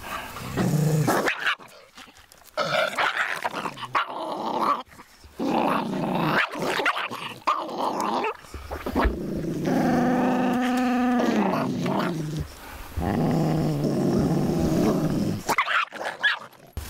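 A small Welsh Corgi–Spitz mix dog growling and snarling in several bouts at a larger dog approaching to greet it, with one longer pitched growl about ten seconds in. The trainer reads the growling as fear-driven avoidance, not aggression.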